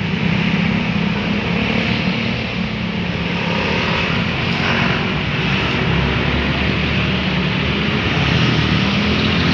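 Bus engine running with a steady low drone and road noise.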